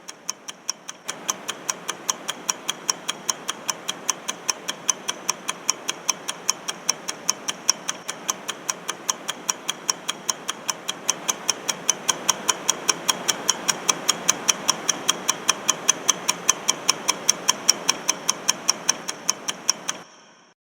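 Countdown-timer clock ticking sound effect: rapid, even ticks at several a second, over a steady hissing bed that comes in about a second in. The ticking stops just before the end, as the timer runs out.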